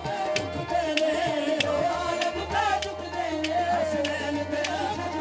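Live qawwali music: hand drums strike a steady beat, about one main stroke every half second or so, under a wavering, sustained sung melody.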